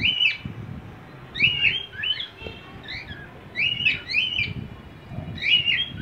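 Cockatiels chirping in short clusters of quick calls, repeated about every two seconds.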